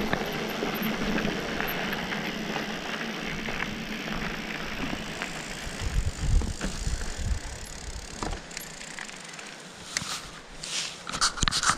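Mountain bike rolling down a gravel track: steady crunch and rush of tyre noise that gradually quietens as the bike slows, with a few low thumps midway and sharp knocks and rattles near the end.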